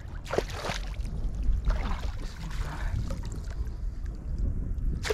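A hooked fish splashing at the surface of shallow, weedy water as it is drawn toward a landing net, in several separate splashes.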